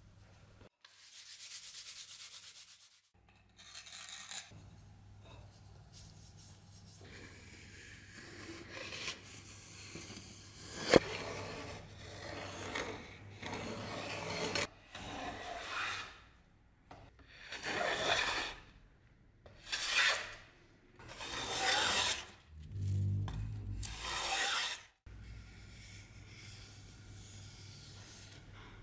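Rubbing strokes by hand on a wooden workpiece. There are scattered scrapes, a sharp click about eleven seconds in, and then four strong strokes of about a second each in the second half.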